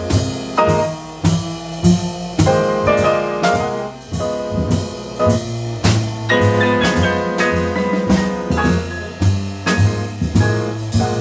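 Jazz piano trio playing: grand piano chords over upright bass and drum kit, with cymbal and drum strokes keeping a steady beat.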